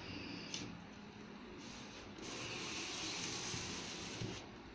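A cat hissing: one steady hiss starting about two seconds in and lasting about two seconds.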